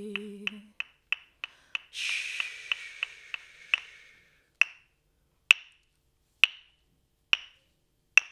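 Clapsticks struck in a steady beat, about three clicks a second, slowing to about one a second from around four seconds in. A held sung note ends about half a second in, and a breathy hiss sounds between about two and four seconds.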